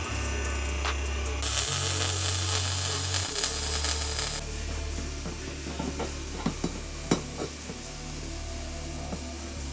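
Background music with a steady bass line, and from about a second and a half in, roughly three seconds of the crackling hiss of a MIG welder welding an exhaust tip onto its pipe. A few sharp clicks follow.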